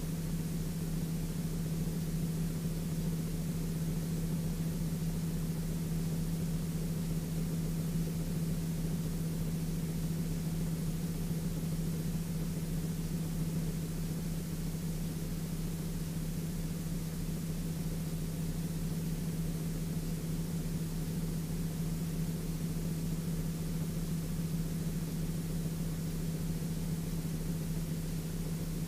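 Sling 2 light aircraft's Rotax 912 engine and propeller droning steadily in level cruise, heard from the cockpit as a constant low hum under an even hiss.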